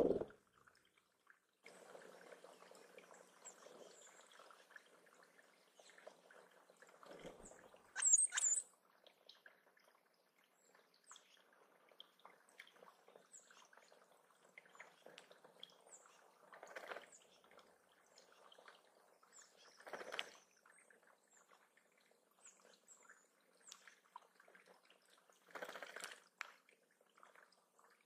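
Faint trickle of water running over stones into a shallow bird pond, broken every few seconds by short splashes of tufted titmice bathing. A brief burst of high bird chirps about eight seconds in is the loudest sound.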